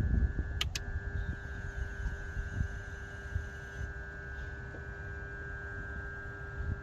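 2004 BMW 325i's 2.5-litre M54 straight-six idling roughly with a low throbbing rumble and a steady whine, with two sharp clicks in quick succession less than a second in: the weird click the owner traces to around the DISA valve.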